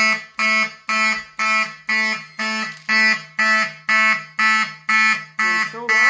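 Fire alarm horn sounding a loud, buzzy tone in pulses about twice a second, each blast stepping down in pitch partway through. The system has gone into alarm from a smoke detector tripped with a test magnet.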